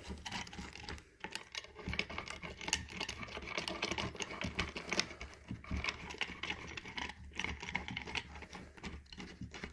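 Chair-leg bolts being turned in by hand: a run of small, irregular clicks and light metallic ticks of bolts and hardware being handled and threaded against the wooden leg.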